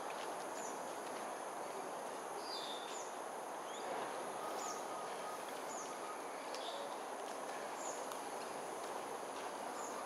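Evening outdoor ambience: a steady high insect drone over a constant hiss of background noise, with short, high, falling bird chirps about once a second.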